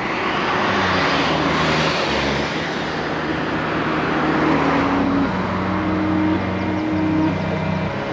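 Road traffic passing close by: engine hum and tyre noise swelling and fading, the engine note shifting pitch in steps.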